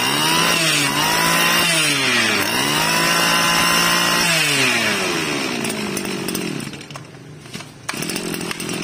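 Tanaka 21cc two-stroke brush cutter engine running, revved up and down a few times, with one longer high rev before it falls back to a steadier idle about halfway through.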